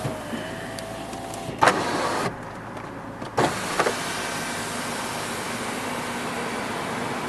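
Electric power sunroof of a 2012 MINI Cooper Countryman S being operated: a faint motor whine, then a sharp clunk about a second and a half in and two more knocks about three and a half seconds in, with a steady hiss of noise around them.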